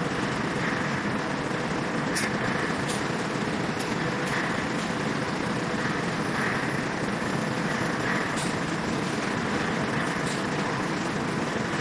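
Steady machinery noise of a running bag-palletizing line, roller conveyors and a robot palletizer working, with a faint steady hum and about seven short sharp clicks and knocks scattered through it.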